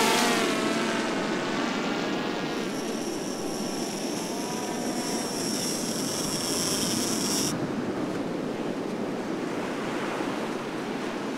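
Quadcopter fishing drone's propellers whining, the pitch shifting and fading as it flies out over the water carrying the bait line, over a steady wash of surf and wind. About two and a half seconds in a high steady whine joins in and stops suddenly a few seconds later.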